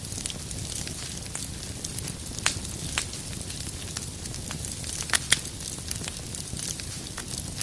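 Wood fire burning in a fireplace: a steady low rumble and hiss of the flames with irregular sharp crackles and pops from the firewood, a few louder pops a little past halfway.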